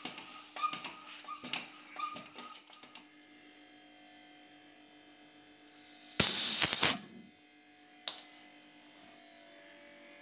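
A foot pump worked in several quick strokes with squeaks, pumping air into a resin-impregnation pressure chamber through its Schrader valve. About six seconds in comes a short, loud hiss of escaping air as the pump's hose is unclipped from the valve, then a single click, with a faint steady hum underneath.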